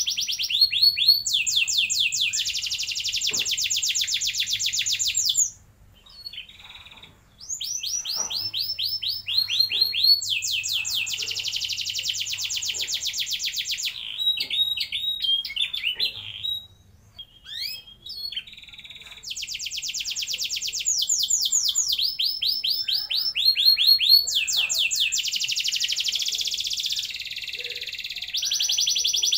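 Domestic canary singing a long song of fast rolls and trills: runs of rapidly repeated high notes, each held for a few seconds, with two short pauses, about six and about sixteen seconds in.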